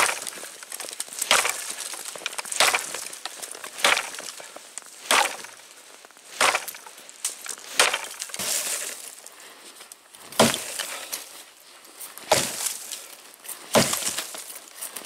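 Double-bit axe chopping into poplar wood: about a dozen sharp blows, roughly one every second and a half.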